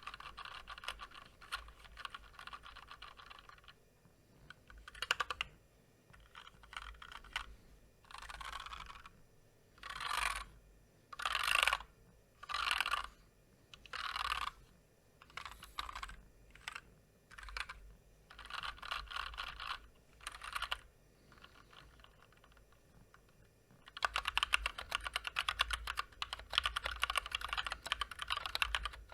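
Typing on a Drop (Massdrop) Ctrl High Profile mechanical keyboard with stock, unlubricated Gateron Clear linear switches and PBT double-shot keycaps. The key clicks come in bursts with short pauses, then a long, fast, continuous run of typing near the end.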